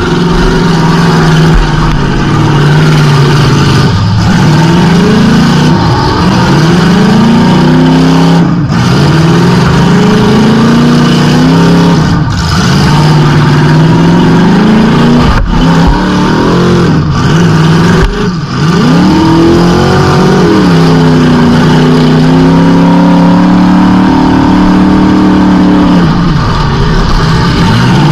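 Demolition derby car's engine, heard loud from inside the stripped cab, revving hard and easing off again and again, with a few brief drops where the throttle lifts.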